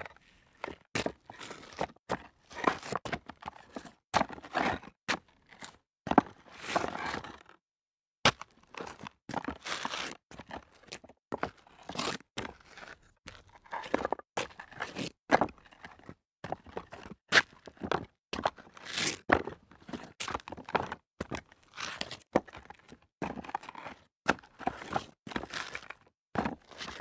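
Sneaker footsteps crunching and scraping on loose rock debris, a long series of separate steps and shuffles with brief pauses, one full stop about seven seconds in.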